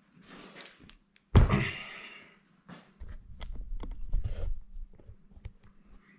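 A single sharp metallic clunk about a second and a half in, ringing briefly, followed by low rumbling handling noise and small scattered taps: metal parts such as an exhaust gasket being set down and moved about on a steel chequer-plate workbench beside an aluminium cylinder head.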